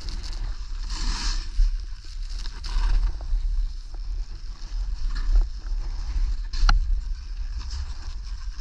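Skis swishing through snow in repeated turns, each turn a swelling hiss, over a steady rumble of wind on the microphone. One sharp click comes about two-thirds of the way through.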